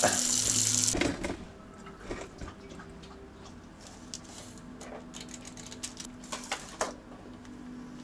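Kitchen tap water running hard into a stainless-steel sink for about a second, then cutting off. Afterwards, faint crinkling and clicking of a foil sauce packet being handled and torn open.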